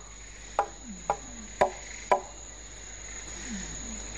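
A steady high-pitched insect drone in tropical forest, with four sharp knocks about half a second apart in the first half and a couple of short falling calls near the end.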